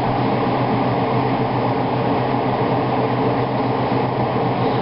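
Steady mechanical hum with an even whooshing noise, from a running electric motor.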